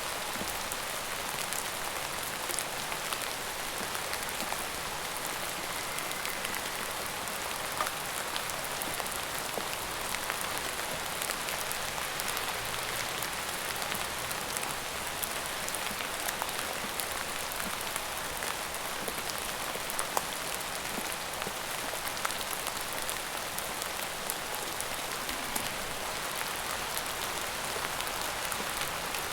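Steady rain falling, a constant hiss scattered with the ticks of single drops striking a surface.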